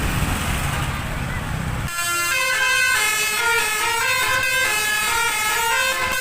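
Low engine and street rumble for about two seconds, then a bus 'telolet' multi-tone air horn, driven by a Modul DAV horn module, plays a quick melody of shifting notes.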